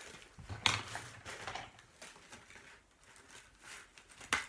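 Tissue and wrapping paper rustling and crinkling as a small gift is handled and cut open, with two sharp clicks: a loud one about a second in, and a scissor snip near the end.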